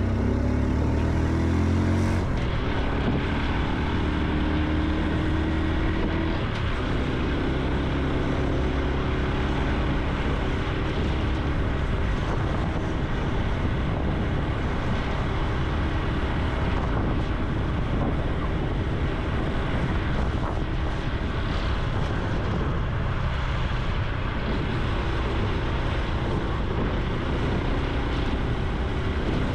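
Honda Super Cub C125's single-cylinder four-stroke engine and exhaust under way: the revs climb for the first two seconds, drop, then settle into a steady cruise, over a constant rushing noise.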